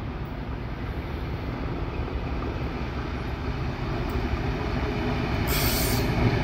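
A train approaching, its low rumble growing steadily louder, with a short burst of hiss about five and a half seconds in.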